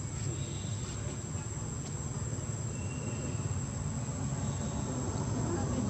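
Insects droning at one steady high pitch, over a continuous low rumble.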